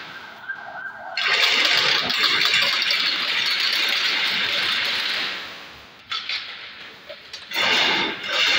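Chain-link fence weaving machine running as it bends galvanized wire into zigzag mesh, a steady hissing mechanical noise. It starts about a second in, fades about five seconds in, and comes back near the end.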